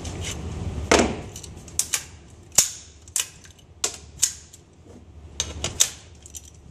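About ten sharp gunshots from a .22 Long Rifle AR-style short-barreled rifle with a 4-inch barrel, fired at an uneven pace. The shot about a second in is the loudest.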